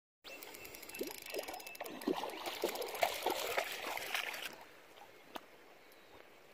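A dog wading and splashing through shallow river water, the water sloshing around its legs. The splashing eases off about four and a half seconds in, leaving a quieter trickle.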